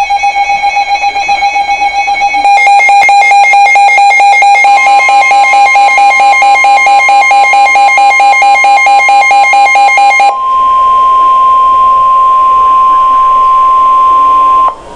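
Emergency Alert System alert tones announcing a severe thunderstorm warning: loud, buzzy electronic tones pulsing rapidly, which change pattern twice and then give way about ten seconds in to a single steady tone that cuts off sharply near the end.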